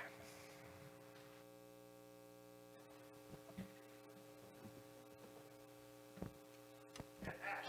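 Near silence with a steady electrical mains hum, and a couple of faint knocks near the end.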